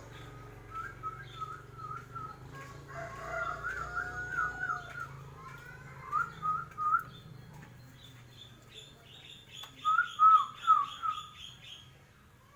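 Bornean murai batu (shama) singing a series of varied whistled phrases, with a quick run of repeated high notes toward the end. A faint steady hum lies underneath.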